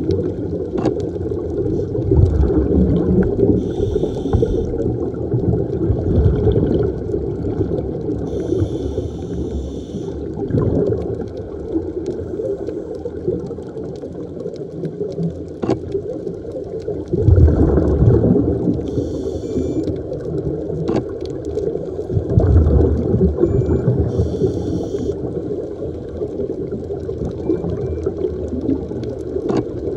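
Scuba diver breathing through a regulator, heard through an underwater camera housing: a short hiss on each inhalation every few seconds and rumbling bubbles on the exhalations, over a constant muffled underwater rush.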